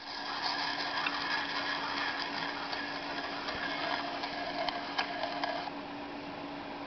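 Worn 1950 three-inch train sound-effects record playing: a steady hiss-like noise with scattered clicks and a faint steady hum, easing a little near the end.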